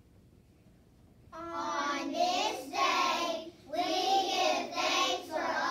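Young children singing a song together, starting about a second and a half in, in long held phrases.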